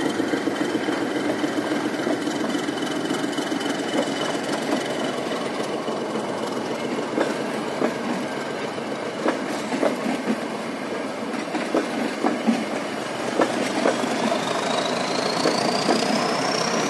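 Nilgiri Mountain Railway passenger carriages rolling slowly past, the wheels clicking irregularly over the rail joints. A thin high tone runs through and climbs in pitch near the end.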